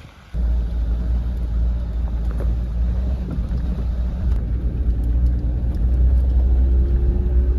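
A vehicle driving on a dirt road: a steady, loud low rumble of engine and tyres that starts suddenly just after the start. A faint tone rises slowly in pitch over the second half.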